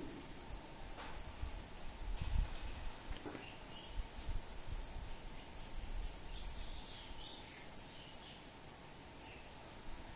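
Steady high-pitched drone of insects in the trees, with a few faint low rumbles in the first half and some soft short chirps in the middle.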